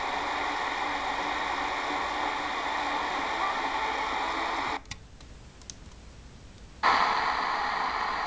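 Sony ICF-SW35 portable radio playing a weak longwave AM station on 171 kHz, received on its built-in ferrite antenna: mostly hiss and static with the programme faint underneath. About five seconds in it cuts off suddenly. Two seconds later the Degen DE1103 comes in on the same frequency, louder and just as noisy.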